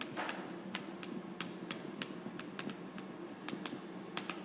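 Chalk writing on a blackboard: a string of irregular sharp taps and clicks, about a dozen, over a faint steady room hum.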